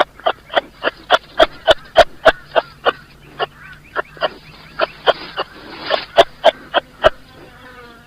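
Kangaroo calling in a rapid series of short, sharp calls, about three a second, which thin out and fade near the end.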